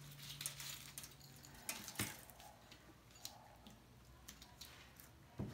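Faint handling noises of a small wheel and tire being turned over in gloved hands: light rustles and clicks, with a sharp knock about two seconds in and a louder one near the end.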